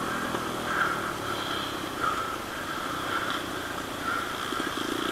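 Short animal calls repeating about once a second over an outdoor background, with a motorcycle engine coming in near the end.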